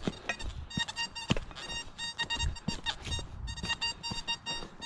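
XP Deus metal detector giving choppy, broken beeping tones over iron junk in hot, mineralised soil, with a few sharp knocks in the first seconds.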